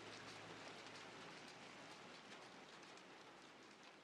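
Faint, steady rain with soft scattered drop ticks, slowly fading out.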